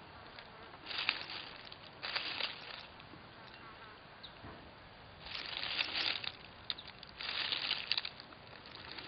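Dry leaf litter rustling and crunching in four short, irregular bursts as something moves through it on the forest floor.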